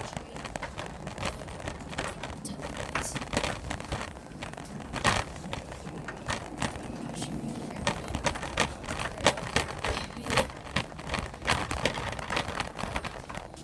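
Wheeled laundromat laundry cart being pushed along, its wheels and frame rattling over a low rumble, with many irregular clacks and knocks.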